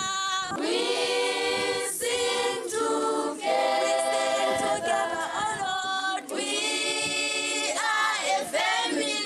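A choir of schoolchildren singing together without instruments.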